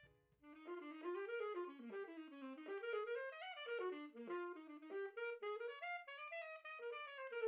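A single melody played solo on a wind instrument: one continuous line of notes that climbs and falls, starting about half a second in, with no accompaniment.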